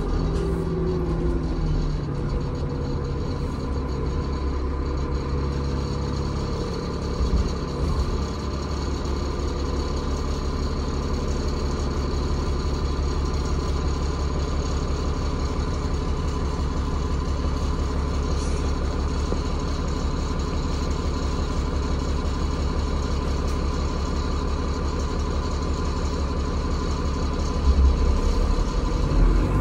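Transbus Trident double-decker bus engine heard from inside the passenger saloon, idling steadily under a low rumble. In the first second the engine note drops, and near the end the rumble grows louder.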